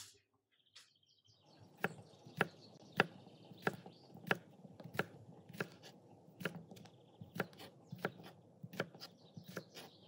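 Kitchen knife chopping cucumber on a wooden cutting board: sharp, steady chops about two a second, starting about a second and a half in.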